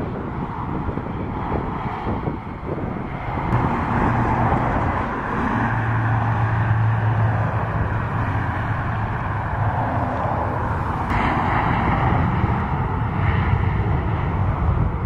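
Airbus A320 jet engines running as the airliner rolls along the runway: a steady rumble and hiss that grows louder about four seconds in.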